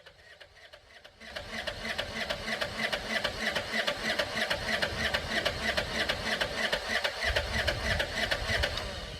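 John Deere 650 tractor's two-cylinder Yanmar diesel engine running with a fast, even rhythmic beat, growing much louder about a second in.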